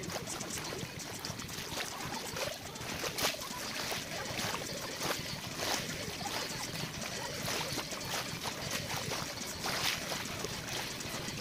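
Shallow sea water lapping and trickling over a sandy shoreline: a steady wash broken by frequent small splashes.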